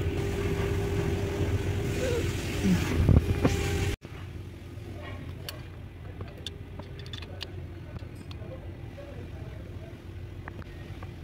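Steady low mechanical hum with a constant tone, loud at first and dropping abruptly to a quieter hum about four seconds in. Light metallic clicks and ticks follow from hands handling the electric coolant pump and its fittings.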